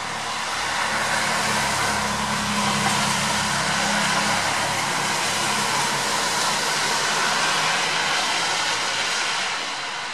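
Rain hissing steadily, with a passing vehicle: a louder hiss with a low hum swells in about a second in, holds, and fades away near the end.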